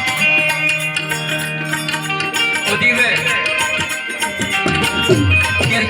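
Instrumental break in an Indian devotional folk song: tabla-led percussion keeps a quick, steady beat under held melodic notes, with no singing.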